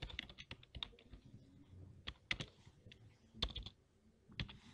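Computer keyboard typing: irregular keystrokes in a few short runs, with gaps between them.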